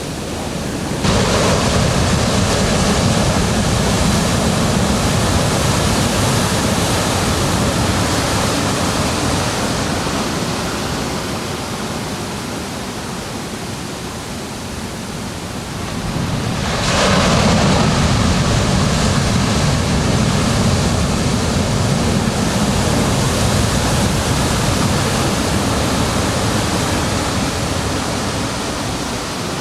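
Ocean waves breaking on a beach: two waves crash, about a second in and again about 17 seconds in, each washing out slowly in a steady rush of surf.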